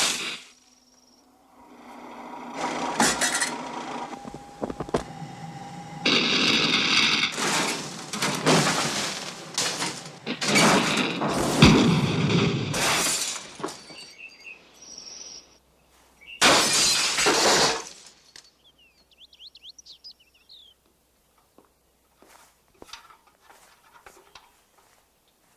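Kitchen fire sound effects: a run of loud crashes and bursts of noise with glass breaking, dying away after about 18 seconds to faint scattered sounds.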